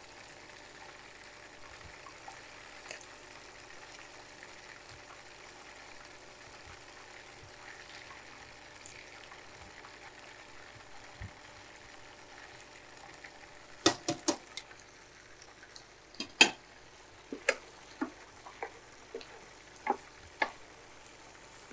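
Meatballs frying in oil in a nonstick pan, a steady quiet sizzle. About two-thirds of the way in come a series of sharp clicks and knocks, tongs and a wooden spoon against the pans as the meatballs are turned and the rice is stirred, the loudest two close together and another about two seconds later.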